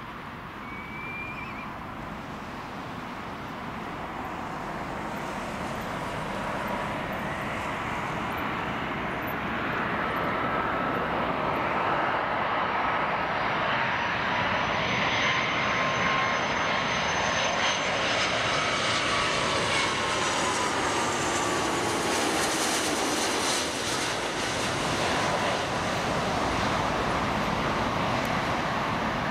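Jet engines of an Airbus A330-300 airliner on final approach: a steady jet roar that grows louder over the first ten seconds or so as the plane comes in low, then holds loud, with faint engine whine tones sliding down in pitch about two-thirds of the way through.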